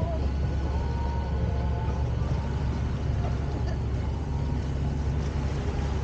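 A sailboat's engine running steadily under way, a constant low hum with wind and water rushing past. Faint voices come and go.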